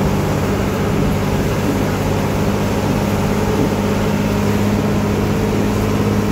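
Bus engine running at a steady cruise inside the cabin, a low drone with several held tones, over an even hiss of tyres on the wet road and rain.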